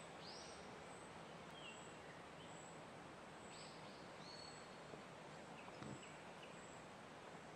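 Quiet forest ambience: a steady soft hiss with a few faint, short bird calls scattered through.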